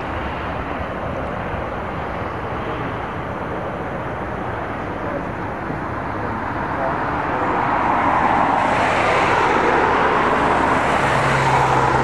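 Boeing 737 jet engines running at taxi power as the airliner taxis by, a steady rumble that grows louder about seven seconds in.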